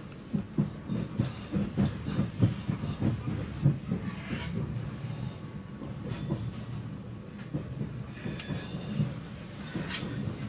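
Regional train heard from inside the passenger car as it runs along the line: a steady low rumble with the wheels knocking irregularly over the track, densest in the first few seconds, and faint high squeals later on.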